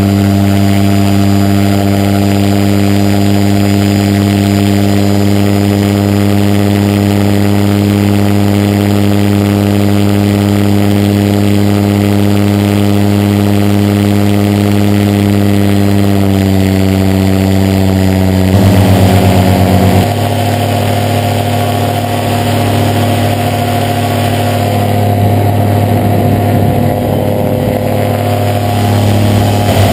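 Mini trike's engine and propeller running steadily at high power through the takeoff climb. About two-thirds of the way through, the pitch eases down slightly and the tone changes abruptly, and the engine keeps running.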